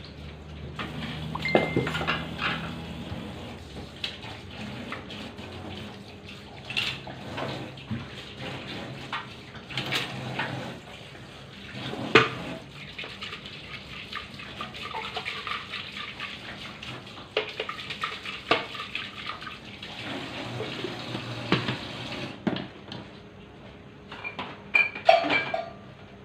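Water running from a tap with pots and dishes knocking and clinking, as in washing up at a sink. The water comes on about a second in and stops a few seconds before the end, and a cluster of clinks follows.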